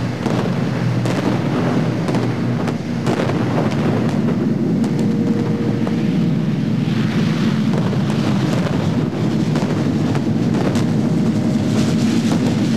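Special effects of a staged bombing raid: a steady, loud, low rumbling noise from gas-fed fire burners and effects, with scattered sharp cracks.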